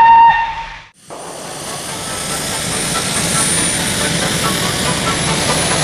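A jet-engine-like rushing noise starting about a second in and building slowly in loudness, the sound of the makeshift high-speed locomotive setting off. A short held tone is heard right at the start, before a brief gap.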